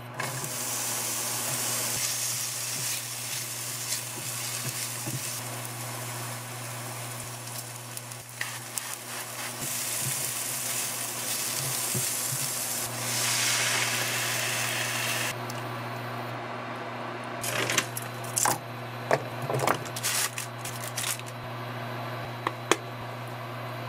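Sliced vegetables and chili flakes sizzling in hot oil in a frying pan while a wooden spoon stirs them. The sizzle stops about fifteen seconds in, when milk and cream are poured in, and a few light knocks and taps follow, over a steady low hum.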